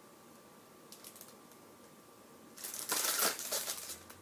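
Quiet with a few faint clicks, then about two and a half seconds in, a brief burst of rustling and crinkling as packaging and items from the crate are handled.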